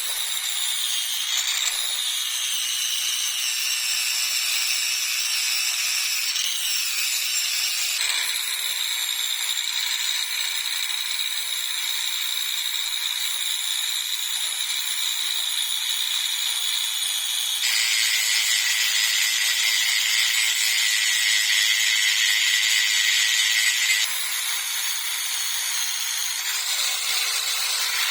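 A power tool running under load on a workpiece, steady and noisy. The sound changes abruptly several times, about 2, 8, 18 and 24 seconds in, as separate clips follow one another.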